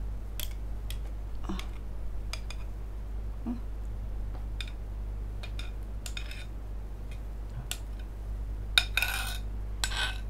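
Metal spoon clinking and scraping against a glass bowl while thick peanut satay sauce is scooped out and spread, a scatter of sharp taps with the loudest run of clinks near the end. A steady low hum lies underneath.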